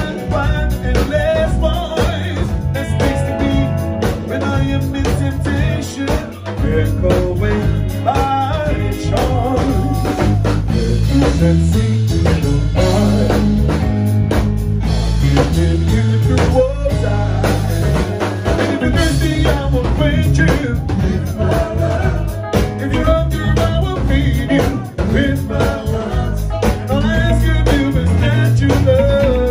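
Live reggae band playing, a male singer's voice over electric guitars, bass and drum kit.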